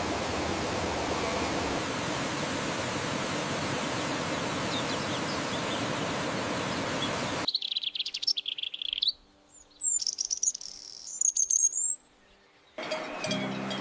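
A steady rushing hiss, then a sudden cut to small birds chirping in quick trills and high whistles, broken by two short near-silent gaps. Near the end another steady sound with ringing tones starts.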